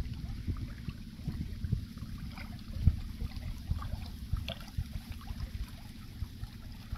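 Small choppy waves lapping and splashing against a rocky lake shore, with wind rumbling and buffeting on the microphone as frequent low thumps.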